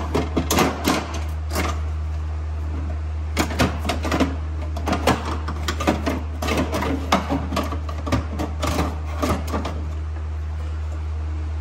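Irregular clicks and clatter of an old power window regulator being worked out of a Jeep Grand Cherokee door, in clusters over the first two seconds and again for most of the middle, fading near the end. A steady low hum runs underneath.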